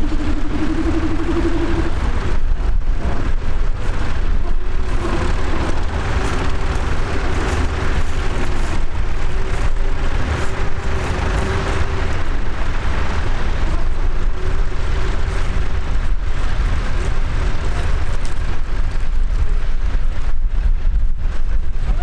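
Diesel tractor engine running steadily under load while pulling a plough, with a faint steady whine in its note.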